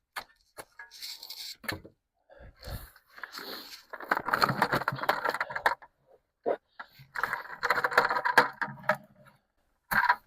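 Metallic jangling and scraping in two stretches of a second or two each, with scattered sharp clicks around them.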